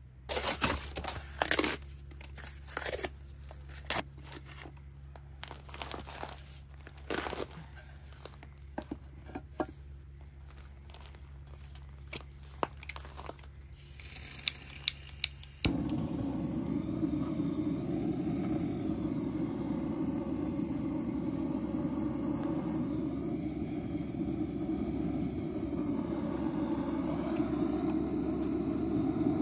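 Kindling and paper crinkling and crunching as they are laid in a brick oven, then a hiss of gas and a few igniter clicks. About halfway through, a handheld butane torch on a gas canister lights and burns with a steady, loud rushing sound to start the fire.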